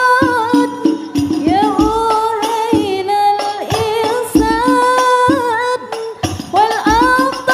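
A woman singing a sholawat melody with long, ornamented held notes, accompanied by hand-struck al-Banjari frame drums (rebana) beating a rhythm underneath.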